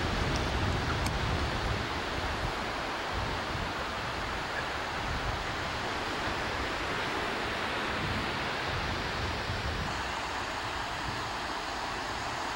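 Steady rush of ocean surf, with wind buffeting the microphone in a fluctuating low rumble.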